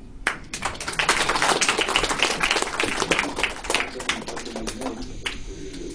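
Audience applauding: a burst of many overlapping hand claps that builds, holds for a few seconds and dies away about five seconds in.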